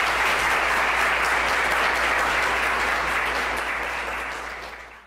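Audience applauding at the end of a lecture; the clapping holds steady for about three seconds, then fades out over the last two.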